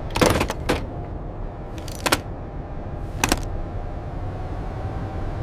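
A steady low hum, the spaceship cockpit's background, runs under a few short, sharp scraping clicks, most likely a wrench working at a minifigure helmet's visor. There is a longer one just after the start, then single ones spaced a second or more apart, and none in the last two seconds.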